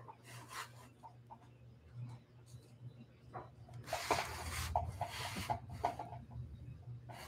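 Rubbing and scuffing right against a phone's microphone as the phone is moved, loudest for about a second and a half from about four seconds in. Light ticks and a low steady hum lie underneath.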